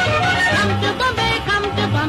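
Background music: a bending melodic line over a repeating low bass line.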